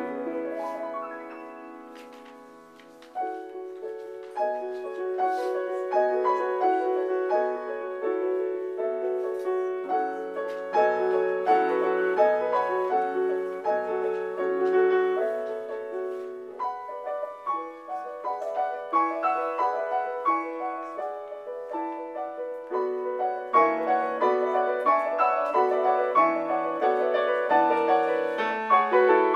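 Solo piano playing a classical piece: an opening chord rings and dies away, then a fast run of notes and chords starts again about three seconds in and continues.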